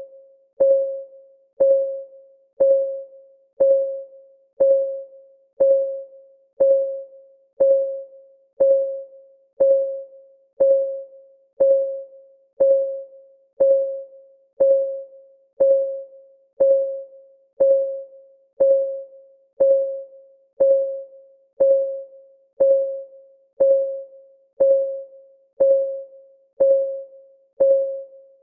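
Clock-ticking sound effect of a countdown timer: about one tick a second, each tick a short ringing tone that dies away quickly, perfectly regular.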